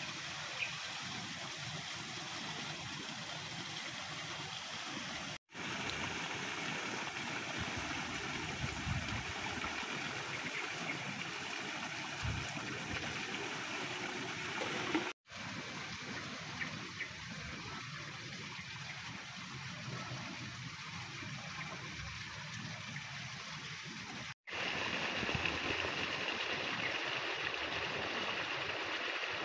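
Steady outdoor background noise, an even hiss with no voices, that cuts out briefly three times and shifts slightly after each break.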